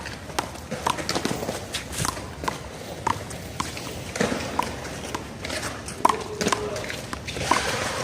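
One-wall handball rally: the small rubber ball smacking off hands and the wall in quick, irregular sharp hits, with players' footsteps on the court.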